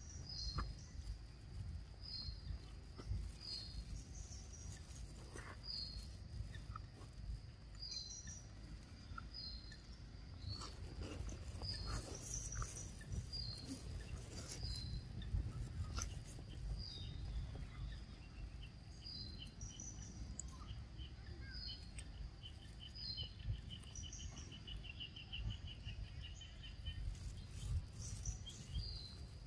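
Outdoor ambience of a short, high chirp repeated about every second or so, with a fainter rapid trill joining about two-thirds of the way in. A low rumble and a few soft clicks sit underneath.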